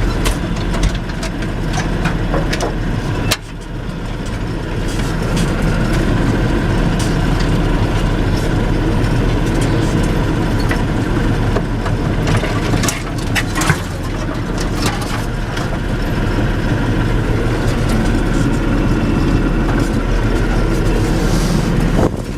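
T-150K wheeled tractor's diesel engine running steadily under load as it drives down a rough forest track towing a loaded trailer, with a few sharp knocks and rattles from the bumps.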